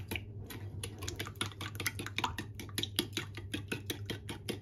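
A metal spoon beating eggs, sugar and milk in a ceramic bowl, clicking against the bowl in quick, even strokes.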